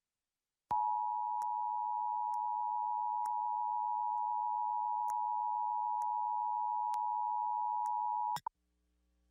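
Emergency Alert System attention signal: two steady tones near 1 kHz (853 and 960 Hz) sounded together, starting just under a second in, held for about eight seconds and cutting off sharply near the end.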